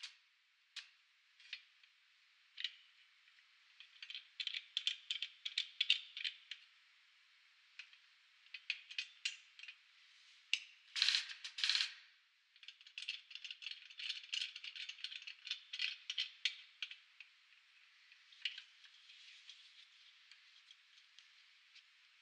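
Metallic clicking and rattling in quick runs as a coil spring is shifted against the steel frame and jaws of a hydraulic spring compressor, with a louder burst about halfway through.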